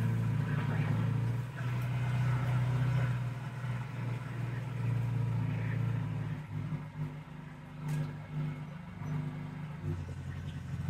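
BigHorn 550 EFI side-by-side's engine running steadily as the UTV drives along, heard from inside its enclosed cab. About six and a half seconds in it eases off and gets quieter.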